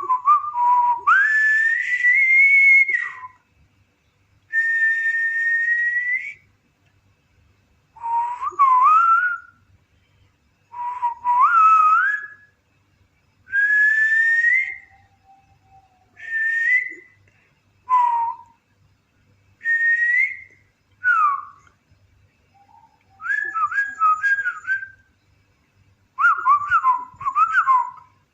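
White-rumped shama (murai batu) singing: a series of clear whistled phrases, many sliding upward in pitch, each a second or two long with short pauses between, becoming quicker and more warbling near the end.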